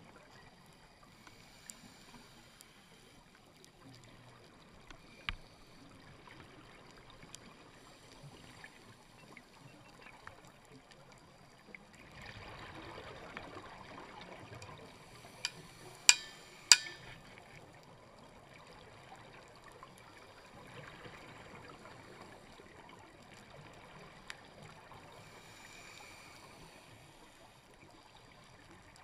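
Underwater sound picked up through a dive camera's housing: a faint steady hiss with the scuba divers' exhaust bubbles gurgling now and then, and a few sharp clicks, the loudest two about sixteen seconds in.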